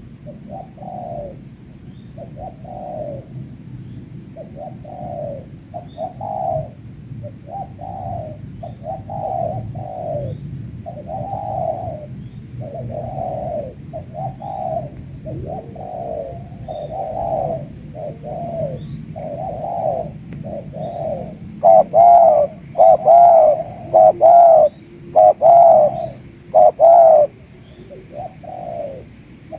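Spotted doves cooing over and over, the coos following close on one another. A much louder, nearer dove starts calling about two-thirds of the way in.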